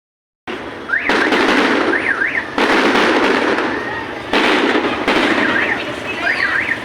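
Fireworks going off in quick succession: each burst starts suddenly and trails into a dense crackle, four times. Short up-and-down warbling tones sound over the crackle.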